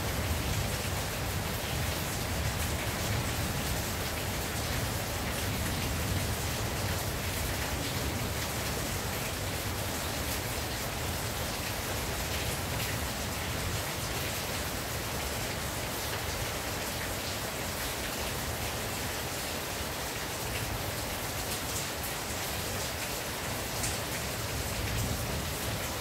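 Steady rain falling on a tin roof: a dense, even patter with single drops ticking through it.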